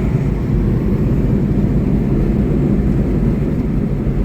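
Steady low rumble of a small truck driving along an open road, engine and road noise without any change.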